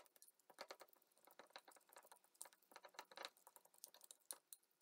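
A fork clicking and scraping quickly and irregularly against a glass bowl while it mashes boiled egg and chopped onion into tartar sauce, sped up. The sound is faint.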